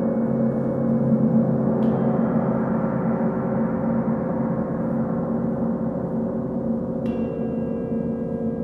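Large gong sounding in a sustained, dense wash of many overlapping tones, slowly fading. Twice, about two seconds in and again near seven seconds, a bright chime-like strike adds clear, high ringing tones over the gong.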